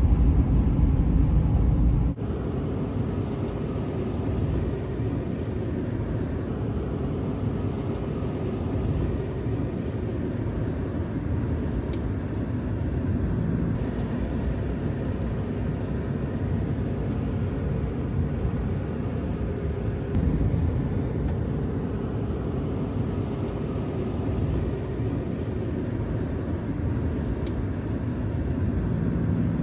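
A vehicle driving, with steady engine and road noise; the sound shifts abruptly about two seconds in.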